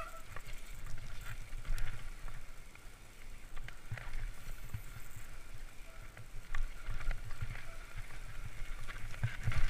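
Trek Fuel EX 8 full-suspension mountain bike descending rough dirt singletrack: tyres rumbling over the ground, with the bike knocking and rattling over bumps, and a heavy knock near the end.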